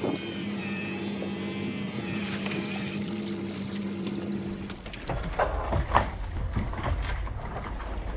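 Electric crab-pot puller's motor humming steadily as it hauls in the pot line, stopping about five seconds in. Then a few clunks and rattles as the wire crab pot is swung aboard against the rail.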